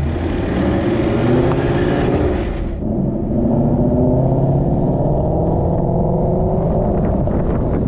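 Inside the cabin of a Boss 302 Mustang under way: its 5.0 V8 and long-tube exhaust drone over a low rumble and hum from the Calimer Stage 3 MT82 gearbox, the noisy cabin typical of this transmission. A hiss in the first three seconds cuts off suddenly, and the engine note then climbs gently.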